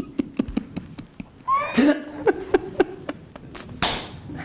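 Two people laughing uncontrollably: short choppy bursts of laughter, squeaky pitched laughs and breathy gasps.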